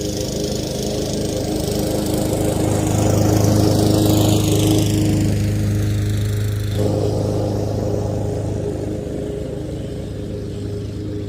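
Lawn mower engine running steadily at cutting speed, growing louder as it comes closer, loudest about four seconds in, then fading as it moves away.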